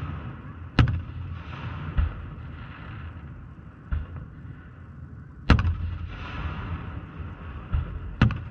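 Aerial firework shells bursting: about six booms at uneven intervals, the loudest a little under a second in and about five and a half seconds in, each trailing off into an echo.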